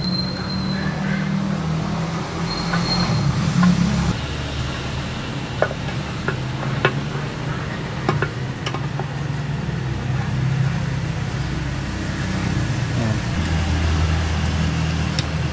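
Steady low rumble of vehicle traffic, with scattered light clicks and taps as a plastic motorcycle fuel pump assembly is handled and seated into its tank.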